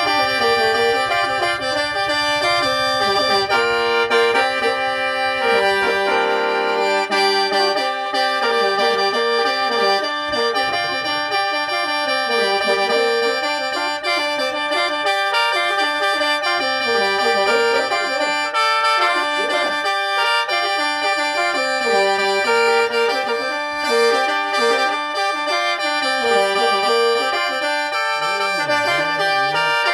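Khaen, the Lao bamboo free-reed mouth organ, played solo in lai yai mode pitched in G minor: a running melody over steady held drone notes.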